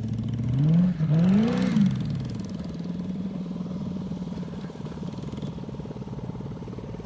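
Off-road-modified Corvette's V8 engine revving up and down twice in quick succession, then running at a steady, lower note that slowly fades.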